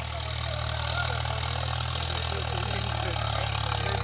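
Swaraj 963 tractor's diesel engine running steadily at working pace as the tractor drives across the field, a low even hum.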